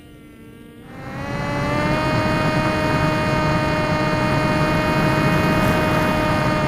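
Electric motor and propeller of a Swift 2 RC flying wing running at steady power in a climb: a steady whine with many overtones, faint at first, then loud and close from about a second in.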